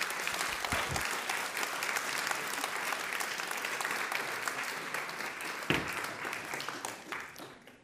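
Audience applause: many hands clapping steadily, then dying away near the end.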